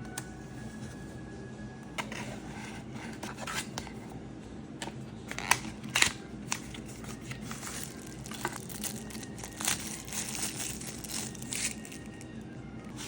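Packaging being handled and torn open: irregular crinkling and tearing with scattered sharp clicks, loudest around the middle.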